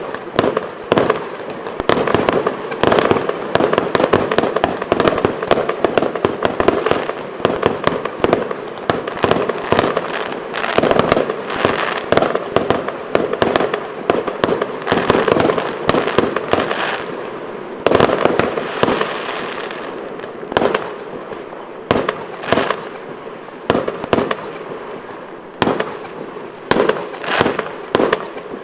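Fireworks going off in a dense, continuous barrage of bangs with crackling between them, thinning to separate bangs in the last few seconds.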